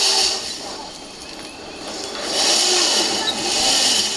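Trolley pulley of a ropes-course swing whirring along its steel cable. The whir comes in two long stretches with a lull between them.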